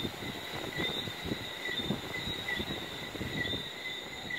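Low, rolling rumble of distant thunder continuing after a lightning strike, slightly quieter than just before. Behind it, a high chirp of night creatures repeats evenly, about twice a second.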